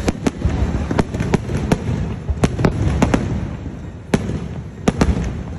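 Aerial firework shells bursting overhead: about a dozen sharp bangs at irregular spacing, some in quick pairs, over a low rumble of further bursts.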